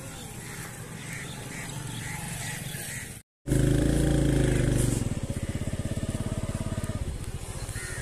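A small engine running nearby with a steady low hum. After a brief dropout about three seconds in, it is louder for a second or so, then settles into a rapid, even putter.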